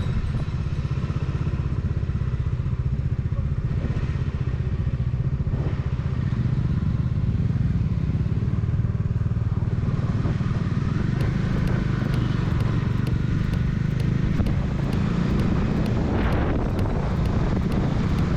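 Bajaj Dominar 400's single-cylinder engine running steadily under way, a dense low rumble at an even level.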